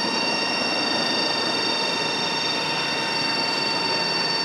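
Steady outdoor background noise beside a road, with a high, even whine held over it.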